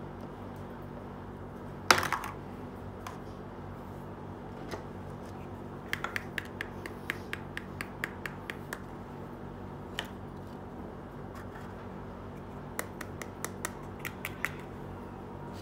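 Small plastic toy pieces clicking and clacking as they are handled and set down. There is one sharp knock about two seconds in, then quick runs of light clicks later on.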